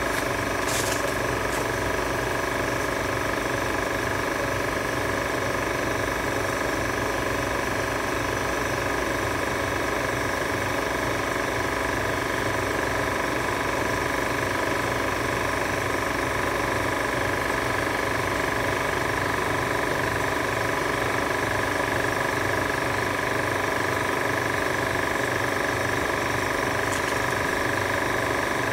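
Steady mechanical drone with several held tones, like a motor running at an even speed.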